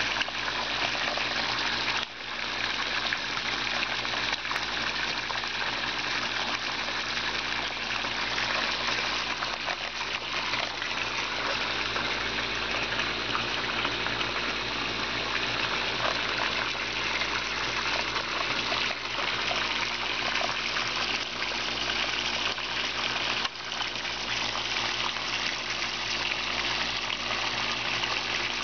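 Water pouring steadily from two PVC return pipes into a backyard koi pond, splashing onto the surface, over the steady hum of a pool-type cartridge filter pump.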